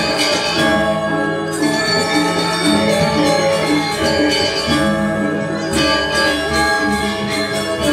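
Balinese gamelan playing a dance piece: many bronze metallophones ringing together in a steady, rhythmic run of struck notes, with a low gong-like hum underneath.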